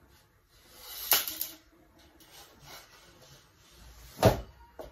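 Ring-light tripod stand being handled and adjusted: a short scraping swell with a sharp click about a second in, then a louder knock about four seconds in.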